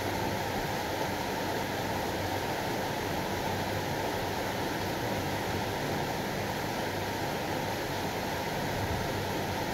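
Heavy rain falling in a steady downpour, an even rushing noise that neither swells nor breaks.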